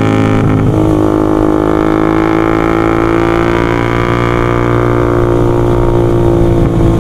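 Honda Sonic 150R's single-cylinder engine through a Marpoll aftermarket full-system exhaust, running under light throttle while riding and holding a steady, droning pitch.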